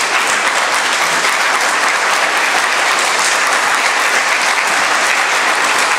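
Audience applauding steadily, a dense unbroken clapping from many hands.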